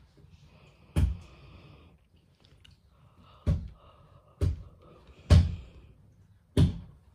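Five sharp bangs on a wooden dresser, a baby hitting the furniture. One comes about a second in, then four more in quick, uneven succession, the fourth loudest.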